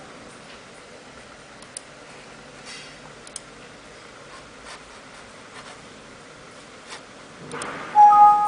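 A few faint computer mouse clicks, then near the end a computer's warning chime as a warning dialog pops up: two notes, the second higher and held longer.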